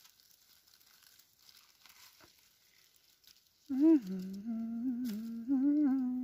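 Faint rustling and handling noise, then, about four seconds in, a person humming a slow tune in long, wavering held notes that stop abruptly.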